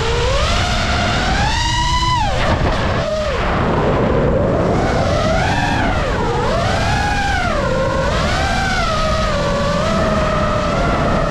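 FPV racing quadcopter's motors and propellers whining, the pitch sweeping up and down every second or two with the throttle as it flies fast and low. Wind rushes over the drone's onboard microphone underneath.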